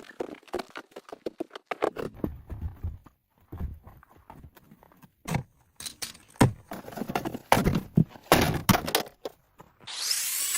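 Irregular knocks and clunks from work on a steel cabinet frame. Near the end a power tool starts running.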